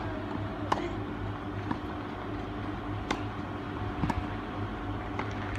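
Tennis balls struck by rackets during a practice rally on a clay court: a few sharp pops a second or more apart, the clearest about three seconds in, over a steady background hum.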